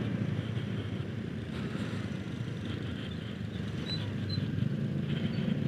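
Honda Beat Street motor scooters riding slowly in a group, a steady low engine hum with road and wind noise. Two faint short chirps about four seconds in.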